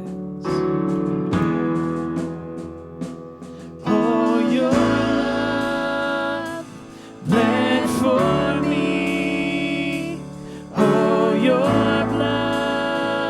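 Church worship band playing a slow song with sustained chords on keyboard and guitar, swelling to a new chord about every three to four seconds, in an instrumental stretch between sung lines.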